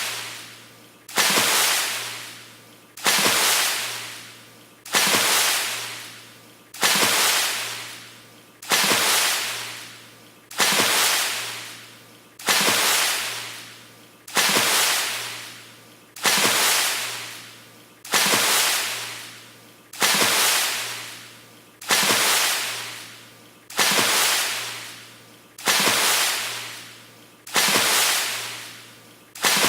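A water splash repeated in a loop, about one every two seconds: each a sudden noisy burst that fades away over a second or so.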